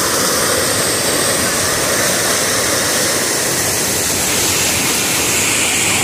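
Waterfall cascading over rocks up close: a steady, loud rush of water.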